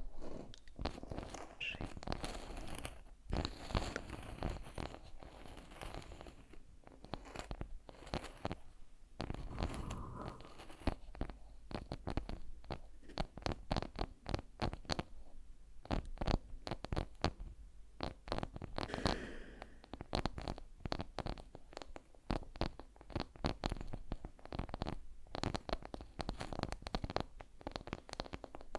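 Close-up ASMR trigger sounds: a dense, continuous run of crackles and clicks layered together.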